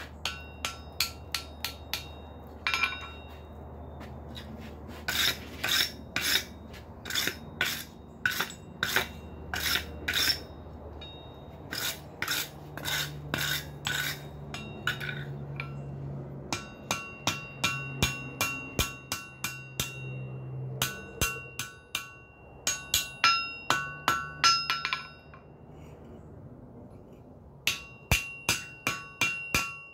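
Hand hammer striking a folded flat bar at welding heat on the anvil to forge-weld it, in runs of quick blows broken by short pauses. Many blows ring out clearly from the anvil, and there is a low steady hum underneath.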